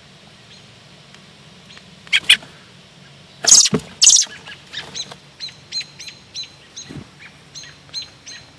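Bird calling: a few loud, sharp calls, then a steady run of short chirps, about three a second.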